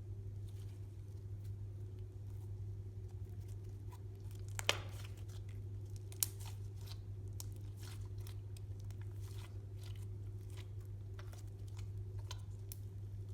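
Slime being worked by hand, giving scattered small sticky crackles and clicks, with two sharper pops about a third and halfway through. A steady low hum runs underneath.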